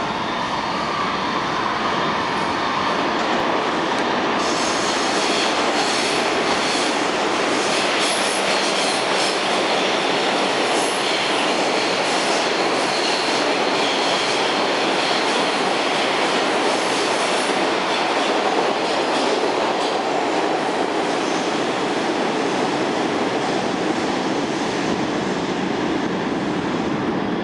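An R142 New York City subway express train running through the station without stopping: a steady loud rush of steel wheels on rail. A harsher, higher layer of noise from the passing cars comes in about four seconds in and eases off around eighteen seconds.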